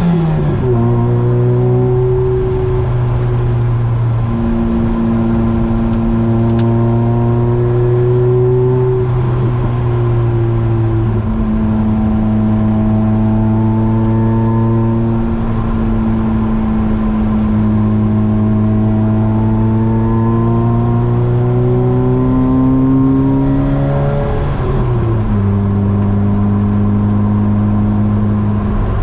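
Opel Speedster's four-cylinder engine, fitted with an aftermarket Larini exhaust, running at a fairly steady engine speed under way with small rises and falls. The pitch drops briefly near the start and again near the end as the driver eases off.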